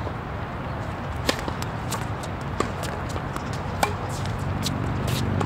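Tennis ball being struck during a rally: a few sharp racket-on-ball pops spaced under a second to about a second apart, the first the loudest, over a steady background murmur.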